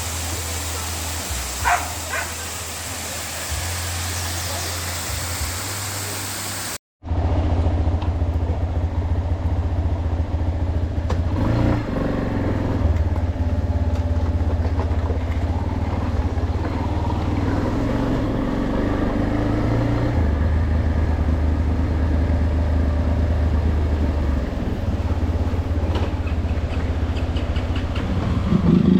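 Rushing water from a waterfall, then after a sudden cut a single-cylinder Yamaha Lander XTZ 250 running steadily under way, a low engine drone.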